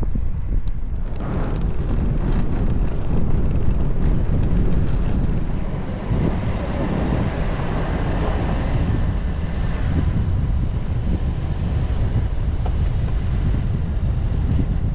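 Strong wind buffeting the microphone, a loud, steady low rumble without a break.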